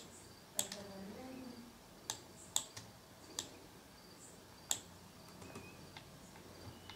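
Scattered sharp clicks of a computer mouse and keyboard, about five in all, spaced irregularly over low room noise.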